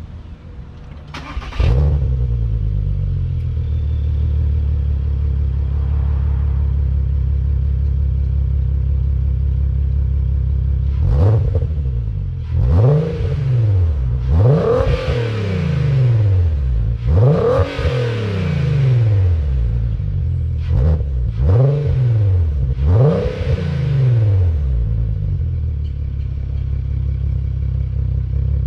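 2018 Volkswagen Passat GT's 3.6-litre VR6 engine starting about a second and a half in and settling into a steady idle. About halfway through it revs in a quick series of throttle blips before dropping back to idle. It is heard at the rear through an exhaust with the middle resonator removed and Vibrant quiet resonators behind the tips, a deep but not too loud note.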